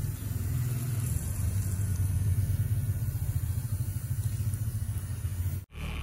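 A low, steady motor rumble with a fast flutter, which cuts off abruptly near the end.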